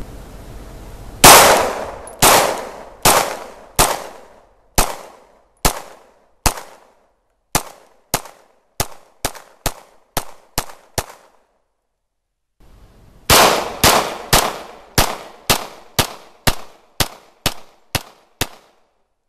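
Semi-automatic pistol fired in two strings of single shots, each crack with a short echoing tail. About fifteen shots come at a steady pace, speeding up toward the end. After a pause of about two seconds, about a dozen more follow in quicker succession.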